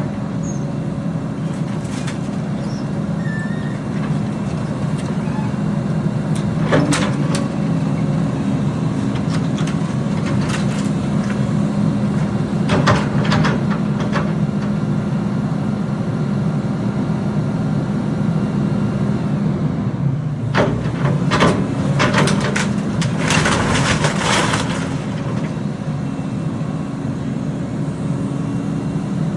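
Heavy construction vehicle's diesel engine running steadily, with scattered metallic knocks and clanks. A cluster of clatter and rushing noise comes about three quarters of the way through, as the engine note dips briefly.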